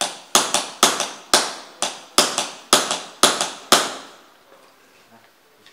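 Hammer striking a pin punch to drive a frame pin out of a Walther PPQ M2 pistol during detailed disassembly: a run of sharp metallic strikes, about two a second, some doubled, stopping about four seconds in.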